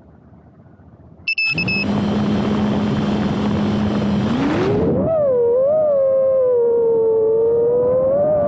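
A short beep about a second in, then the motors of an iFlight Nazgul Evoque F5 FPV quadcopter start with a steady hum that rises in pitch around four seconds in and turns into a whine that wavers up and down as the throttle changes, recorded through the onboard Caddx Peanut camera's microphone.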